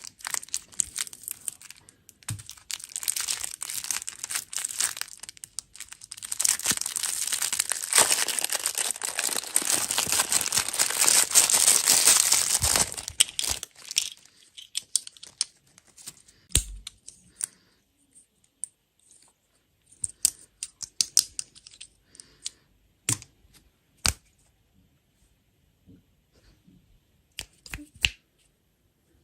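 Plastic candy wrappers crinkling and tearing, close to the microphone. This is a dense run of crackling, loudest partway through, that about halfway in thins to scattered sharp crinkles and clicks.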